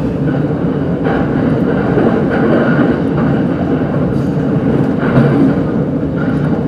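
Steady running noise of an electric commuter train heard from inside the car: wheels rumbling on the rails with a few light clatters. It grows a little louder for several seconds while another train passes close alongside.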